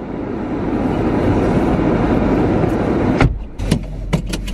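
Someone getting into a car: a steady noise of movement, then the car door shutting with a thud about three seconds in, followed by a few light clicks.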